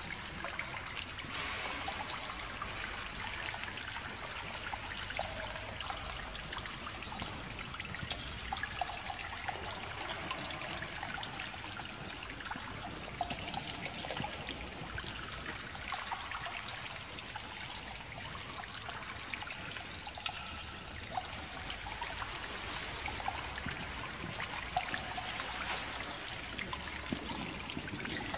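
Water trickling steadily into a small ornamental pool among rocks.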